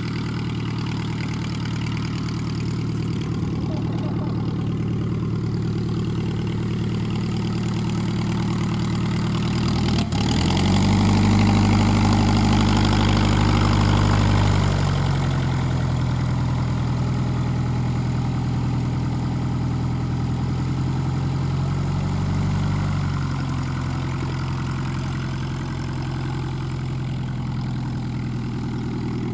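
Klemm 35D's Hirth four-cylinder inverted piston engine running on the ground, idling steadily. About ten seconds in it is opened up to a louder, faster run for some five seconds, then settles back to idle.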